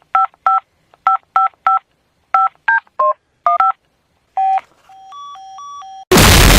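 Touch-tone keypad beeps from a Motorola cell phone: about fifteen short dual-tone presses in an uneven run, mostly the same key over and over, then a brief series of quieter stepped electronic beeps. About six seconds in, a sudden, very loud blast of static cuts in.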